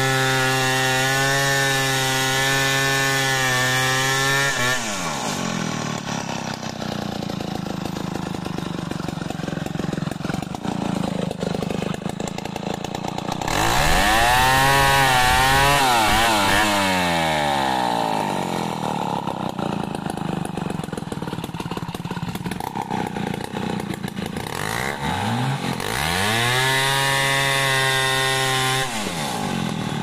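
Stihl 070 two-stroke chainsaw ripping a log lengthwise in a freehand milling cut. It runs at a steady full throttle for the first few seconds, then drops back. Mid-way and again later it revs up and down, is held at full throttle once more, and falls off just before the end.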